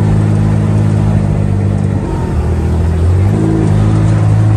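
Engine of an open utility cart running while it drives, dropping in pitch for about a second partway through and then picking back up.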